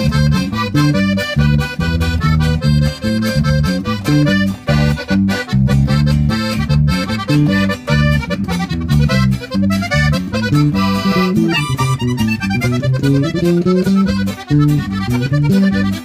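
Sierreño trio playing an instrumental passage: a button accordion carries the fast melody over a strummed twelve-string acoustic guitar and an electric bass.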